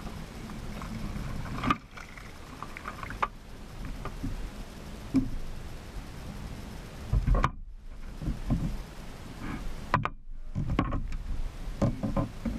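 Sounds aboard a fishing kayak on the water: scattered knocks and clatters against the hull over a steady low rumble.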